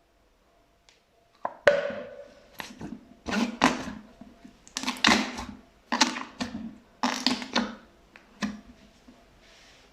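Fluffy slime being pressed and squeezed by hand: a string of short, squishing presses with fine popping of trapped air, about one or two a second, starting about a second and a half in.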